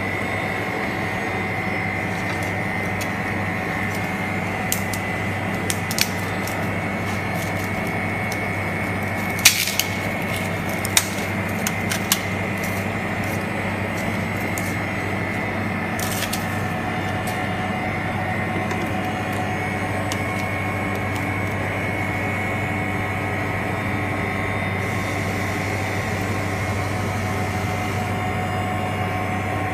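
Steady mechanical hum of a screen frozen separator's refrigeration unit running. A handful of short sharp clicks and knocks sound between about 5 and 16 seconds in, the loudest about 9.5 seconds in, as a frozen phone screen is handled on the machine's metal tray.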